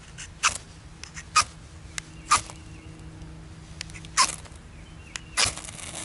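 About five quick, sharp scrapes of a Swiss Army knife blade struck down the flint rod of a magnesium fire-starter block, roughly one a second, throwing sparks onto a pile of magnesium shavings to light them.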